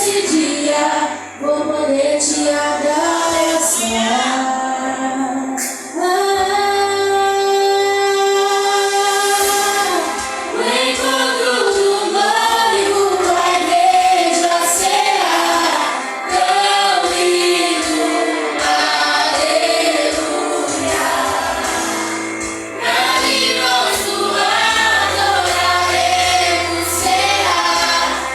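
Gospel worship song sung by a vocal group, female voices to the fore, with sustained low bass notes underneath.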